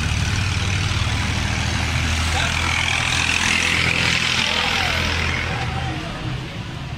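Street traffic noise with a motor vehicle engine running close by in a steady low hum, swelling a little midway.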